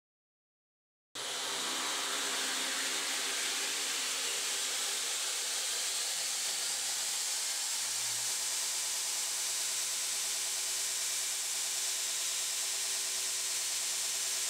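After about a second of silence, a Knifeprint F series belt grinder running steadily with nothing being ground: an even hiss from the abrasive belt travelling over its wheels, with a faint motor hum underneath.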